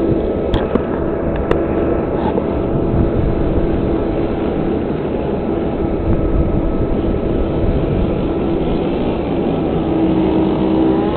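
An engine running steadily at a constant pitch, with a couple of sharp clicks in the first second and a half.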